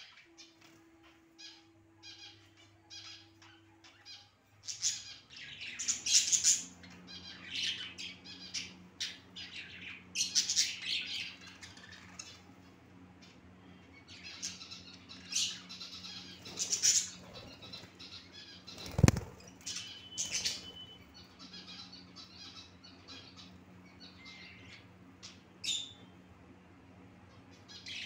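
Pet budgerigars chattering and chirping in quick, uneven bursts, with wings fluttering now and then. A single sharp knock about two-thirds of the way through, over a faint steady hum.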